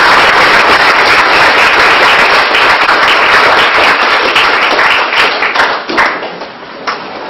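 Audience applauding steadily, dying down about five to six seconds in with a few last scattered claps.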